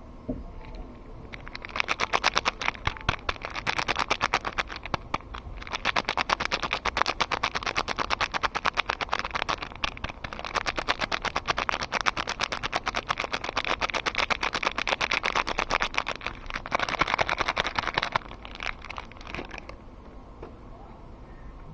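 Soap packaging being unwrapped by hand: a dense run of quick, crisp crackles with a couple of short pauses, trailing off near the end.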